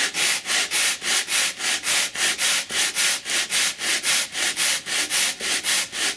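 Root end of a paper-covered foam wing panel rubbed back and forth on sandpaper glued to a plywood board: fast, even sanding strokes, about four a second, shaping the wing root to the dihedral angle.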